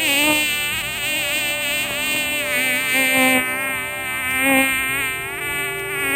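A flying insect buzzing continuously, its pitch wavering up and down.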